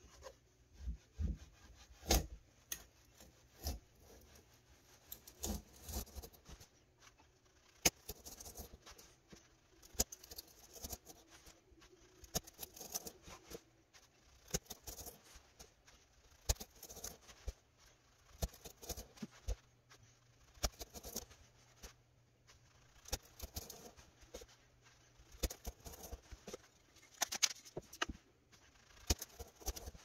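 Hand file scraping across a carved softwood piece in short, irregular strokes, often in small clusters with pauses between.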